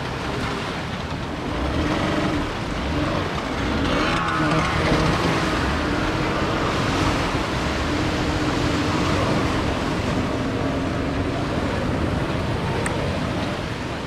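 Surf breaking and washing up a sandy beach, with the steady hum of a small speedboat's outboard motor running just offshore.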